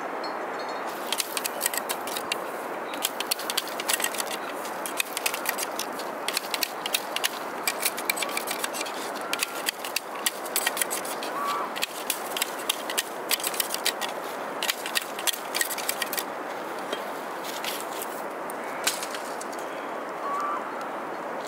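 Split bamboo strips clicking and snapping against each other in quick, irregular runs as a basket is woven by hand, over a steady background rush. The clicks stop about three quarters of the way through, with one last click a few seconds later.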